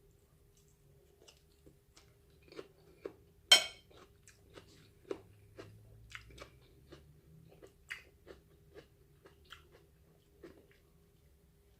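A person chewing and biting food close to the microphone: a string of short, irregular wet mouth clicks and crunches, with one much louder sharp click about three and a half seconds in.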